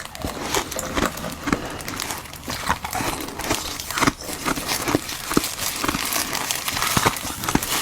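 Ice frozen in a glove mould being bitten and crunched, close up, with dense, irregular cracking and crackling.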